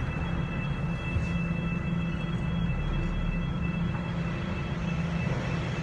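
Steady low hum of a running machine, with a faint steady high whine above it.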